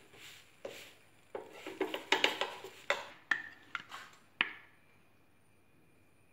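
Spatula scraping and tapping against a non-stick dosa pan as a cooked crepe is lifted off: a quick run of sharp scrapes and clicks that stops about four and a half seconds in.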